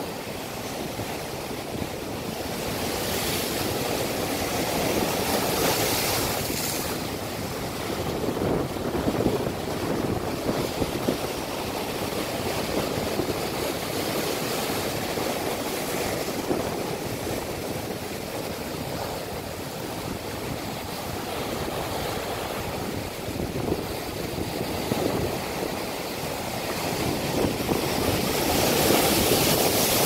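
Big ocean waves breaking and surging over a rock shelf: a continuous rushing wash that swells with each incoming wave. It is loudest near the end as a wave bursts in spray against the rocks.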